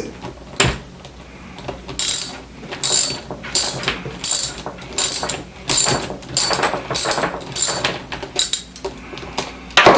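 Socket ratchet wrench clicking in a steady run of strokes, about three every two seconds, as it unscrews a tightly fastened roller skate axle nut to take the wheel off.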